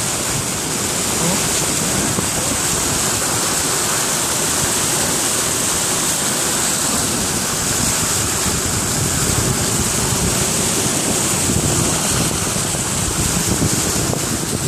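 Steady rushing and splashing of a vehicle's tyres driving through shallow floodwater on the road, heard from inside the vehicle.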